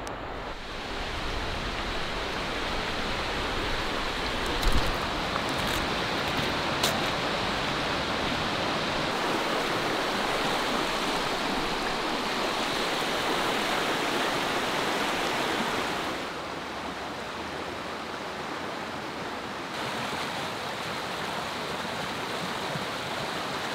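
Shallow, clear mountain river running over rocks, a steady rushing water noise that drops a little after about 16 seconds. Two brief sharp knocks come about five and seven seconds in.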